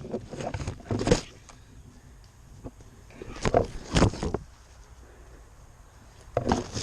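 Irregular crunching and rustling, like footsteps through dry leaves and brush, with a louder cluster of steps in the middle and another near the end.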